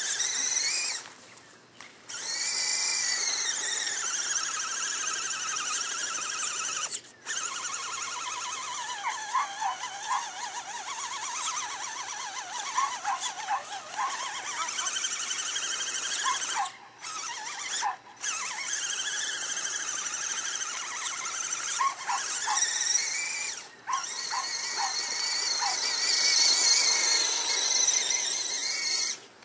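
The electric motor and gearbox of an Axial SCX10 Honcho RC crawler whine high as they are throttled up and down, the pitch rising and falling. The whine cuts out briefly about five times as the throttle is let off. The truck is stuck in deep mud.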